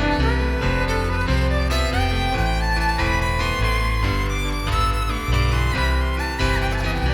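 Live contemporary folk band playing an instrumental break: a fiddle carries a sliding melody over low, changing accompaniment notes.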